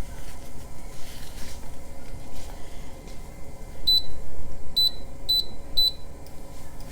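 Four short, high electronic beeps: one about four seconds in, then three more close together about a second later.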